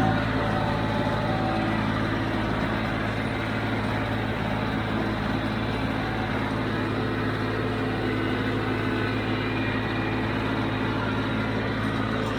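John Deere 5055D tractor's diesel engine running steadily at working speed while baling hay.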